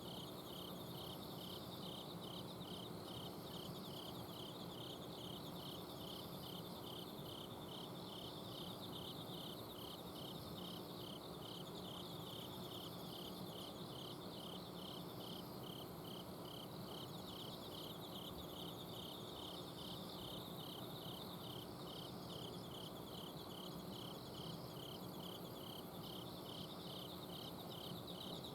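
Autumn insects singing in chorus. One chirps steadily about twice a second, while others trill continuously higher up. Underneath runs the steady hum of an air-conditioner outdoor unit.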